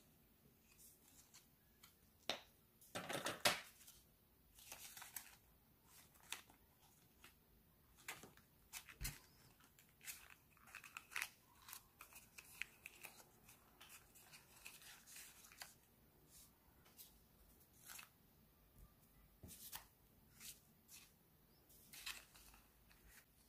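Faint rustling and crinkling of origami paper handled by fingers, in short scattered crackles, the loudest a brief rustle about three seconds in. The folded paper dog is being opened out, and near the end a stack of memo sheets is slid into it.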